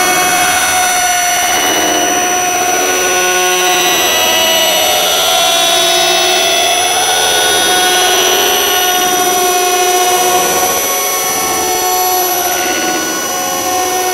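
A loud, dense drone of several held tones that waver slowly over a steady hiss, without separate clicks or knocks.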